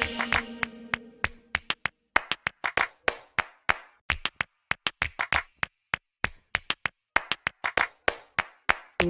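Percussion-only break in background music: sharp, dry clap-like hits in a rhythmic pattern with silence between them, as the previous track's held notes fade out over the first second or so.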